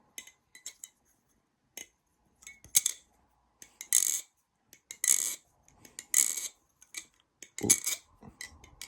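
LDY Orion V2 balisong being flipped: a string of sharp clicks and clacks from the handles and pivots, with a bright metallic rattle about once a second as the handles swing round and close. A glassy, clean sound.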